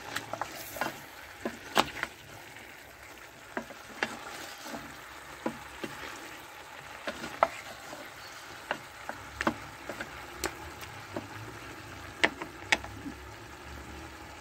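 Chicken pieces frying in a pan over a wood fire: a steady sizzle broken by scattered sharp clicks and pops.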